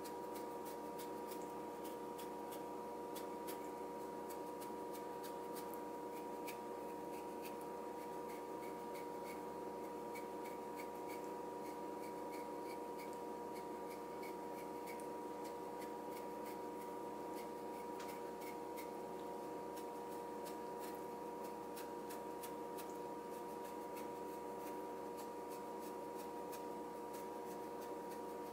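Freshly sharpened Murray Carter custom yanagiba of Hitachi White #1 steel shaving a continuous paper-thin sheet off a daikon radish (katsuramuki): a faint crisp scratching made up of many small ticks, over a steady hum.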